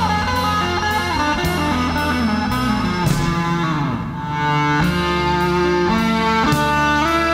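Instrumental prog rock: an electric guitar line over a sustained bass and a steady beat, the guitar sliding down in pitch about halfway through.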